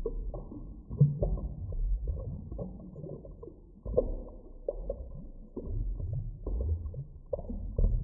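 Muffled underwater ambience: a low rumble of moving water with irregular soft knocks and pops, several a second. It is dull, with no high sounds at all.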